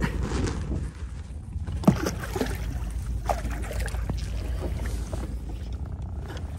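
Hooked fish splashing at the surface as it is scooped into a landing net, over a steady low wind rumble on the microphone; a sharp splash or knock stands out about two seconds in.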